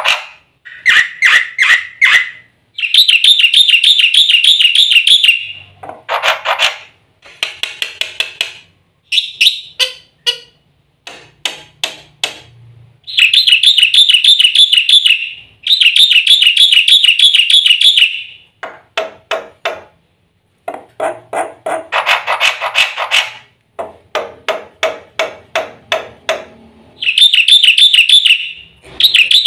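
Black-winged myna (jalak putih) singing loudly. Its song alternates series of rapid repeated notes with long, buzzy trills of two to three seconds, and is packed with phrases mimicked from other birds.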